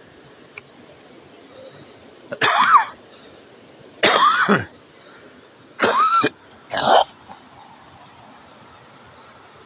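A person coughing four times, close and loud, each a short harsh cough of about half a second, the four spread over about five seconds.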